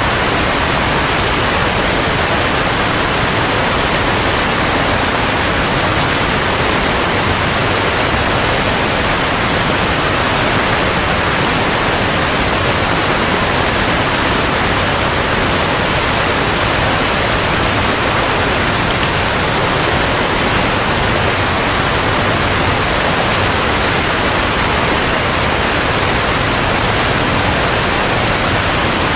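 Steady rush of falling water, an unbroken even hiss with no swells or separate splashes.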